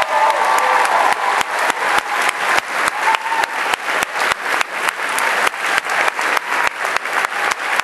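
Audience applauding, a dense steady clapping, with a few short shouts over it near the start and again about three seconds in.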